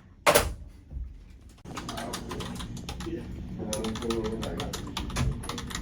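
A single sharp knock, then a run of quick, irregular clicks with a faint voice-like murmur under them.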